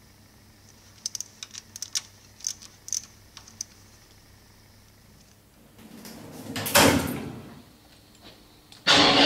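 Ratchet driver clicking in short runs as the cover-plate bolts on a bronze impeller pump are tightened. A brief swell of noise follows, and near the end the water jetting machine starts up and runs steadily.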